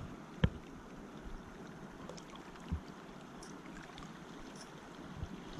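Steady rush of flowing stream water, with a sharp knock about half a second in and a couple of fainter knocks later.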